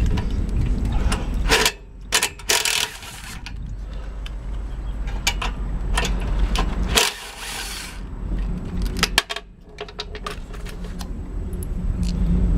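Hand tools clicking and clinking on metal while a 3/8 socket undoes the carburetor mounting nuts on a Briggs and Stratton 190cc mower engine. There are irregular clicks throughout, with two denser spells of rapid clicking about three seconds and seven seconds in, over a steady low hum.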